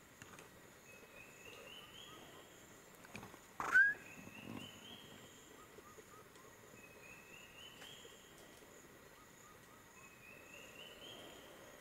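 Night forest ambience: a steady high insect drone, with a short rising run of notes repeating about every two seconds. A single sharp click about four seconds in is the loudest sound.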